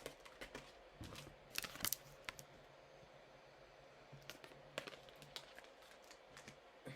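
Tarot cards being handled: faint, scattered sharp clicks and papery snaps of cards drawn and laid down, in two small clusters.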